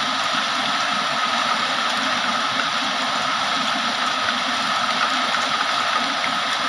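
Heavy rain falling in a steady downpour, an even hiss with no separate drops or thunder standing out.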